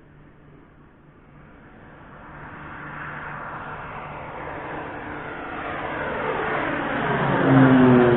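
Twin-engine propeller aircraft on landing approach, its engine and propeller sound growing steadily louder as it comes in low and passes directly overhead. The pitch drops near the end as it goes over.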